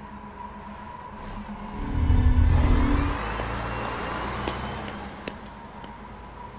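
A car passes close by about two seconds in, a loud low rumble that breaks off abruptly, then a quieter traffic rumble that fades away, over a steady low hum.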